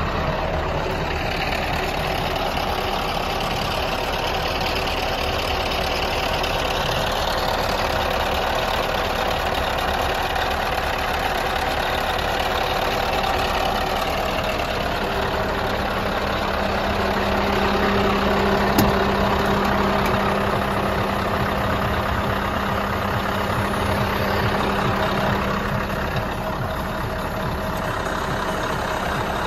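Scania R500's V8 diesel engine idling steadily, with a single sharp click about two-thirds of the way through.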